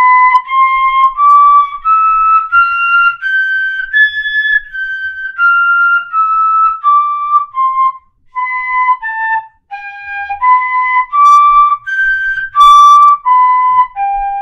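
Pífano (wooden fife) in C playing separate tongued notes. A scale climbs step by step for about four seconds and comes back down. After a short break about eight seconds in, a second up-and-down phrase follows and ends on a low held note.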